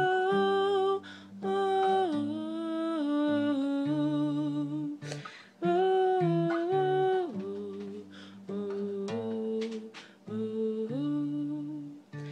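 A woman humming a slow wordless melody in held notes that slide from one pitch to the next, over acoustic guitar.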